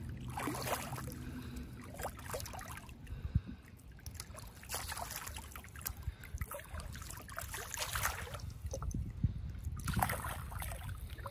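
A large common carp, hooked in the tail, thrashing at the water's surface: irregular splashes every second or two, one of the biggest near the end. A steady low rumble runs underneath.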